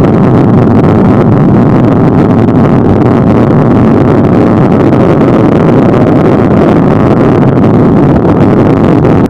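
Longboard wheels rolling fast down a paved street, a loud steady rumble peppered with small ticks from the road grit, with wind buffeting a camera mounted on the board.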